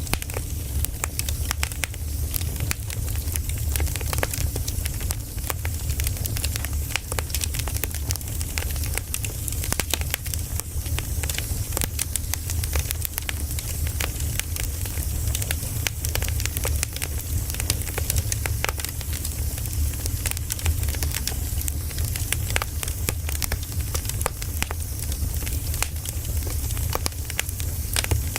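Campfire of burning firewood crackling, with many irregular sharp pops over a steady hiss and a low rumble.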